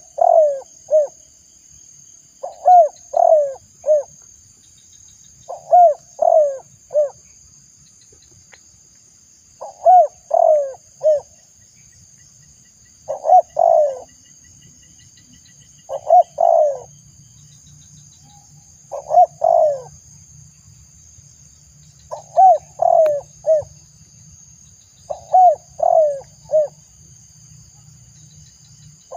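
Spotted dove (tekukur) cooing: a phrase of three or four rising-and-falling coos repeated about every three seconds, nine times over.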